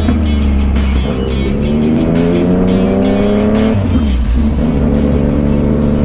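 Yamaha MT-09's three-cylinder engine pulling under acceleration, its pitch rising for about three seconds, dropping sharply just before the middle as it shifts up, then running steadier, with wind rumble on the microphone.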